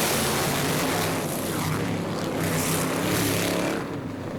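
A pack of modified and sportsman stock cars running at full throttle as their race starts. The engine noise is loud and dense, then drops away near the end as the cars pull off.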